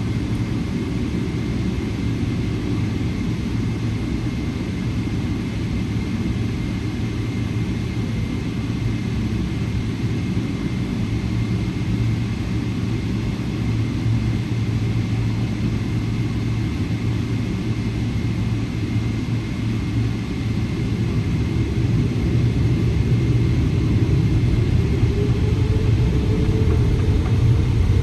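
Inside the cabin of a Boeing 777-300ER taxiing: a steady low rumble from its GE90-115B engines at low thrust, with a faint steady high tone. About three-quarters of the way through, a rising whine sets in and the rumble grows louder as the engines begin to spool up.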